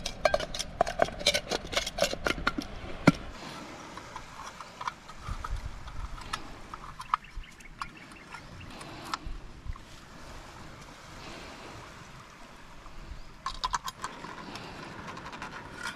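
A quick run of knocks and clinks as a cooking pot is set over the fire, the sharpest about three seconds in. Then comes a steady low hiss with a few scattered clicks, and another short run of clicks near the end.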